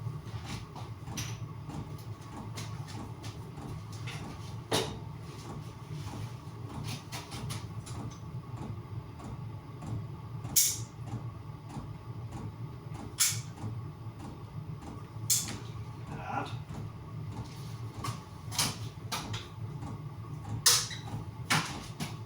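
Scattered sharp clicks and knocks of hands and tools working on a heater box, over a steady low hum, with the loudest knocks about halfway through and near the end.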